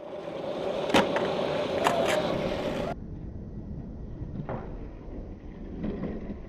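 Skateboard wheels rolling on pavement with a steady hum, broken by sharp clacks of the board about a second in and twice just before two seconds. After an abrupt cut about three seconds in, the rolling goes on quieter, with a few faint clacks.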